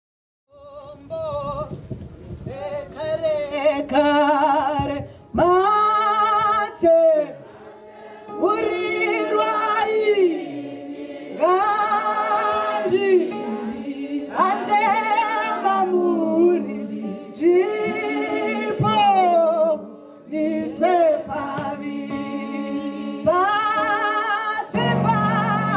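A woman sings a Shona hymn into a microphone, unaccompanied, in long phrases with vibrato and short breaths between them. Near the end a low sustained note from an instrument comes in under her voice.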